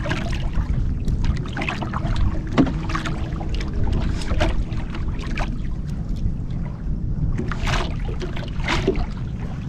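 Small outrigger boat on choppy sea: wind rumbling on the microphone and water lapping at the hull, with scattered short clicks and splashes, two stronger ones near the end.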